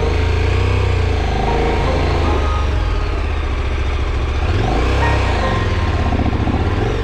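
Adventure motorcycle engine running as the bike rides a dirt track, over steady wind and riding noise. The revs rise and fall once about two-thirds of the way through.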